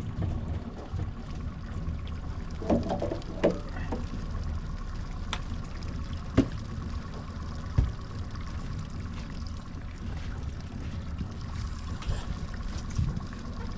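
Boat's outboard motor running steadily at trolling speed, a low rumble with a faint steady whine, and a few short knocks on the boat.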